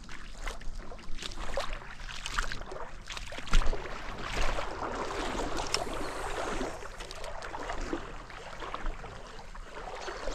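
Water splashing and sloshing in a shallow river, with scattered knocks and one sharp knock about three and a half seconds in, as the boat and the wading angler move through the water.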